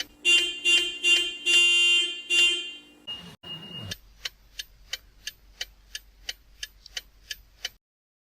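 Nissan car alarm in panic mode: the car horn sounding in quick repeated blasts that stop about three seconds in. A short beep follows, then steady clicking about three times a second.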